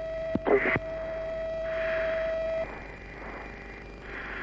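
Mirage 2000 cockpit audio: a steady, hum-like tone over a constant background hiss, cutting off about two and a half seconds in. A click and a brief snatch of radio voice come just under a second in, and soft hissing swells follow.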